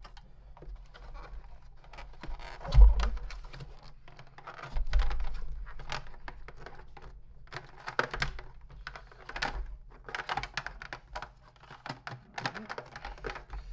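Plastic housing of a Lindhaus HF6 canister vacuum being handled and turned over by hand: irregular clicks, knocks and rustles of plastic parts and cord, with a dull thump about three seconds in and a smaller one around five seconds.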